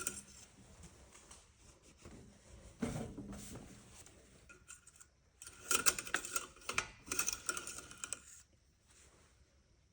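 Metal clinking and rattling of parts and tools being handled while working at the engine's oil drain: a knock about three seconds in, then a run of clinks from about six to eight seconds in.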